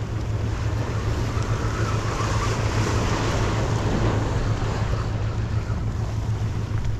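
Wind buffeting the microphone over surf washing against the rocks below, a steady rushing noise with a deep rumble.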